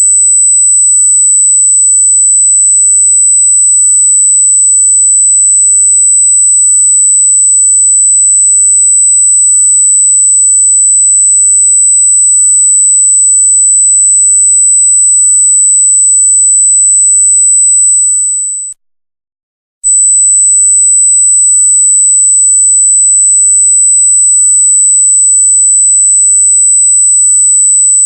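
A loud, very high-pitched electronic pure tone held steady at one pitch. It cuts out for about a second roughly two-thirds of the way through, then resumes unchanged.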